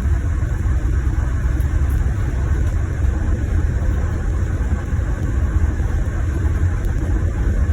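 Scania Irizar i6 coach heard from inside the cabin: steady low engine and road rumble while the coach runs.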